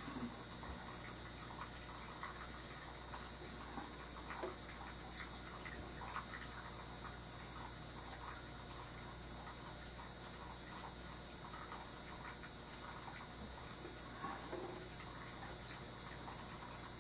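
Quiet room tone: a steady low electrical hum and hiss, with faint small clicks and taps at irregular moments.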